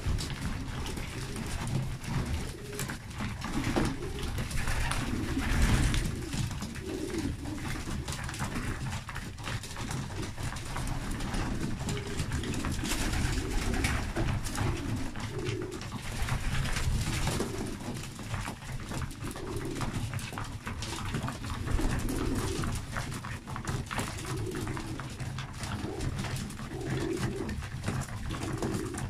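South German Monk pigeons cooing over and over, low rolling coos every second or two, with many quick clicks of beaks pecking seed from a wooden feeding trough.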